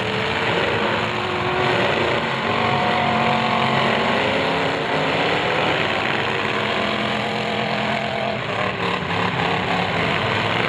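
Several demolition derby car engines running together, their pitch rising and falling as they rev.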